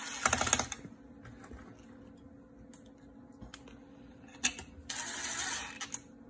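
DeWalt cordless drill-driver driving screws into the cover of an aerobic septic air pump. It runs in two short bursts: a rapid rattling one near the start, and another about five seconds in with a click just before it.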